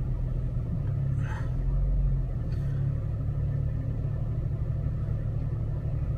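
Off-road vehicle engine running at low speed while crawling, a steady low rumble that swells briefly about two seconds in.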